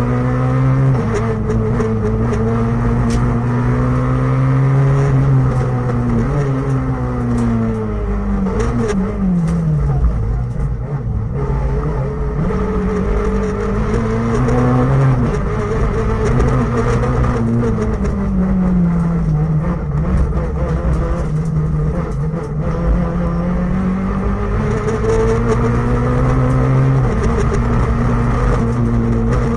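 Rally car engine heard from inside the cabin, revving hard and rising and falling in pitch as the car accelerates, shifts and slows for corners through the gears.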